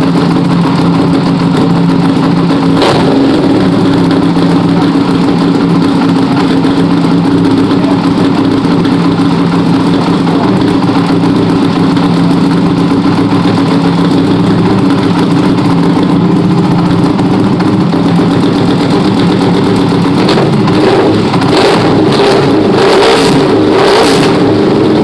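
Ducati 1299 Superleggera's Superquadro L-twin engine idling steadily just after start-up, then blipped a few times in quick succession near the end.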